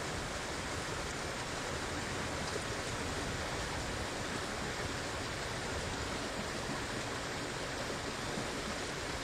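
Glacial meltwater rushing steadily through a channel in the glacier's surface.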